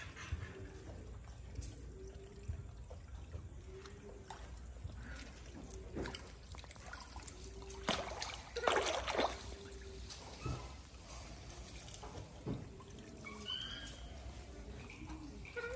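Water trickling from a pipe into a pool, with a monkey splashing hard in the water about eight to nine seconds in. A few short high chirps sound near the end.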